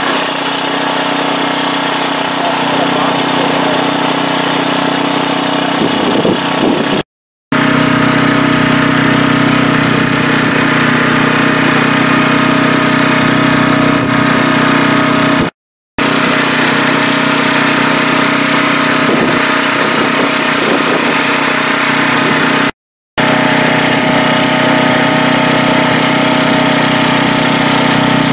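A small engine running steadily at one constant speed, a level drone. It drops out briefly three times where the clips are cut together.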